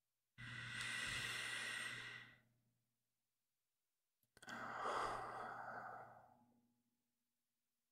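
A man breathing slowly and deeply close to the microphone: two long breaths, each a couple of seconds, starting sharply and trailing off.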